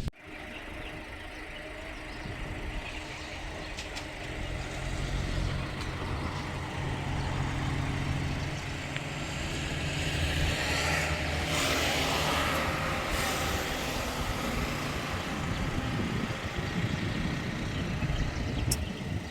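A motor vehicle's engine running steadily with a low hum that slowly grows louder, and a hissing rush about eleven to thirteen seconds in.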